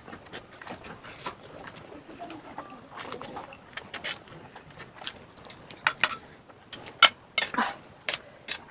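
Close-up eating sounds of spicy instant noodles: chewing, slurping and mouth smacks, heard as short, irregular clicks and pops that come a little louder and closer together from about six seconds in.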